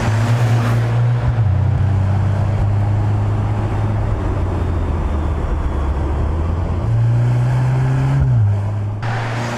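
Mercedes-AMG C63 S E Performance's turbocharged 2.0-litre four-cylinder engine and exhaust running on the road at a steady pitch, with tyre and road noise. The engine note steps down about a second in, climbs again around seven seconds and drops once more about a second later.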